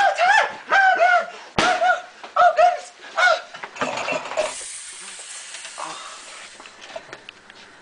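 A person screeching in a high falsetto like a monkey: about six short cries that bend up and down, in the first three and a half seconds. These are followed by a steady hiss lasting about two seconds.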